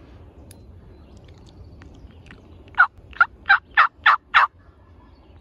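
A series of six loud turkey yelps in quick succession, about three a second, starting about halfway through.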